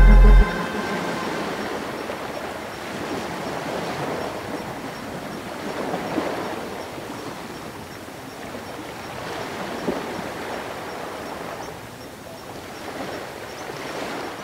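Ocean waves washing in slow, repeated swells, a steady rush of surf that rises and falls every few seconds. A music track cuts off abruptly just at the start.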